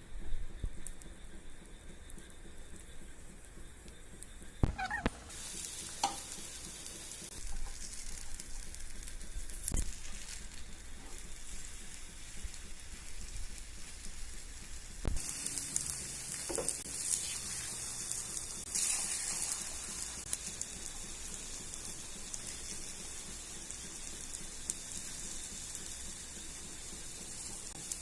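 Egg paniyaram batter frying in hot oil in a paniyaram pan, sizzling. The sizzle sets in about five seconds in and grows louder about halfway, with a few sharp knocks along the way.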